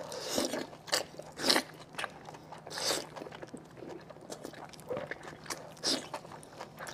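Close-up eating sounds: a person bites into and sucks on a chewy, sauce-glazed piece of braised offal. There are several loud, wet bites and smacks at uneven intervals, with quieter chewing between them.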